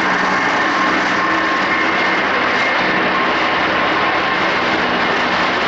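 Bangladesh Railway's Sagordari Express passenger coaches rolling past on the rails, a loud, even running noise with faint steady hums through it.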